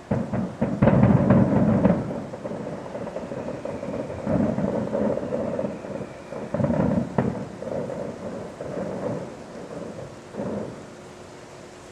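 Distant aerial fireworks going off in a string of rolling booms with crackle. The loudest barrage comes about a second in, and there is a sharp bang about seven seconds in.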